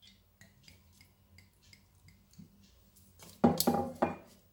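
A hand mixing flour and water into dough in a stainless steel bowl. Faint soft ticks give way, about three and a half seconds in, to a louder burst of knocking and rubbing against the bowl that lasts about half a second.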